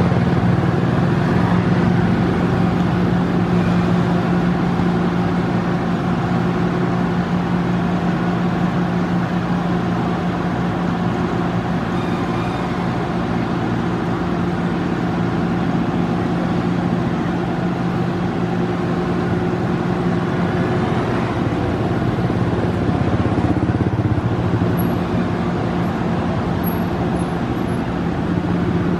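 Small petrol generator engine droning steadily at constant speed, a loud low hum that holds the same pitch throughout.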